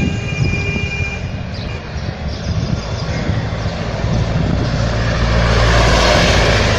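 A van driving past: engine rumble and road noise that ease a little, then build again to their loudest about six seconds in before starting to fade.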